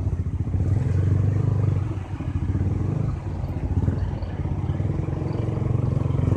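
Honda CB150R's single-cylinder engine running at low revs in slow traffic, with brief dips in level about two and three seconds in.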